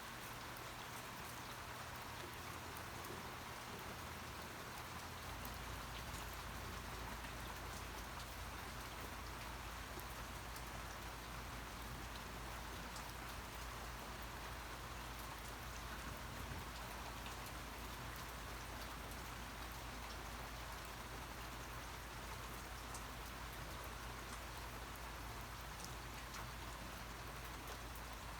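Steady rain falling, individual drops ticking through an even hiss. A low rumble joins underneath about five seconds in.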